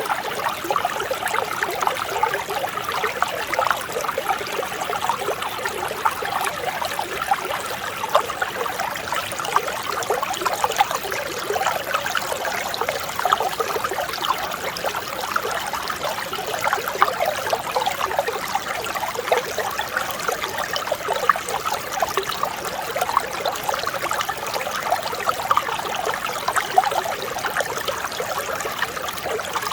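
Mountain stream flowing and babbling over rocks, a steady, even rush with constant small splashes and trickles.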